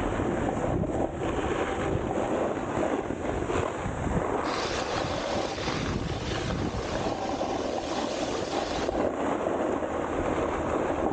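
Steady scraping rush of a snowboard sliding over icy, hard-packed snow, mixed with wind blowing on the microphone.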